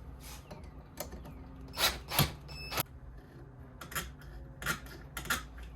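Metal clinks and clicks of hand tools working a small steel S hook, about eight separate strikes, one near the middle ringing briefly.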